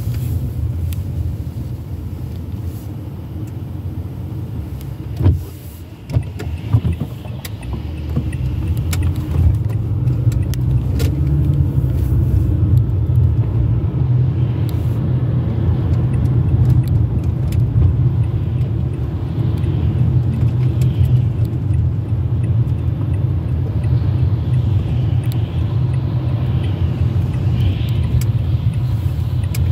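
Cabin noise of a car on a rain-wet road: a steady low rumble of engine and tyres, with a few sharp knocks about five to seven seconds in. It grows louder about eight seconds in as the car gets moving, then holds steady.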